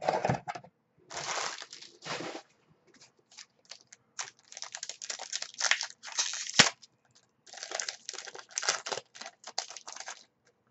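Foil wrappers of Select Footy Stars trading card packets crinkling and tearing as they are opened by hand, in irregular crackly bursts, with one sharp click about six and a half seconds in.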